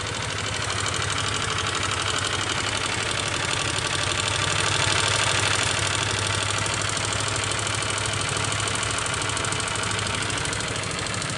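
Yamaha Aerox scooter's single-cylinder four-stroke engine idling with its body panels off. It runs with a steady fast rhythm and swells a little around the middle. Its rough knock is likened to piston slap, a sign of a worn piston.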